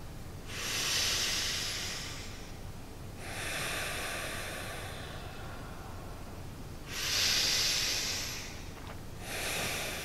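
A man breathing deeply through his nose: two slow breath cycles, with air hissing audibly through the nostrils, each a louder draw followed by a softer release.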